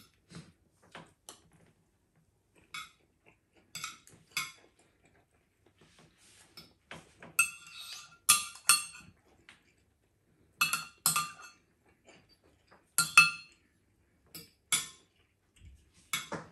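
Metal spoon and fork clinking against a ceramic dinner plate while eating: irregular sharp clinks with a short ring, a cluster of the loudest ones about halfway through and more a few seconds later.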